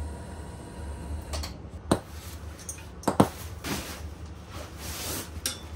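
A couple of sharp knocks, about two and three seconds in, with rustling as a metal-framed lift-up bunk bed and its mattress are handled, over a low steady hum.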